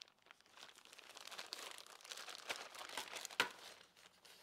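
Clear plastic bag of a torque arrestor kit crinkling as it is handled and opened, with a sharp click about three and a half seconds in.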